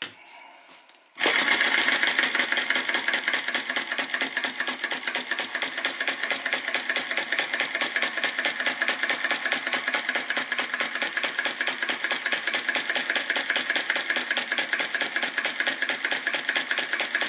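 Retrol VE-01 crossbeam vacuum engine (flame licker) starting about a second in after its flywheel is flicked by hand, then running at a steady fast pace with a rapid, even clatter from its piston, valve and beam linkage.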